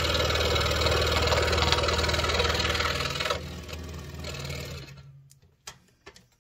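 Scroll saw running with its blade cutting wood, a steady rhythmic buzz. About three seconds in the sound drops, and the saw winds down to a stop by about five seconds, followed by a few light knocks.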